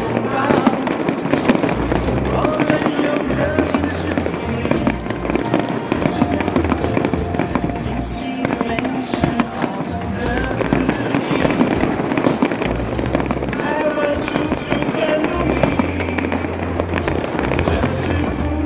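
Aerial fireworks bursting and crackling again and again over loud, continuous show music.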